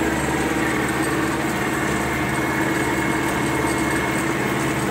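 MTZ-82 tractor's four-cylinder diesel engine running steadily under load as it pulls a disc harrow through stubble, heard from inside the cab.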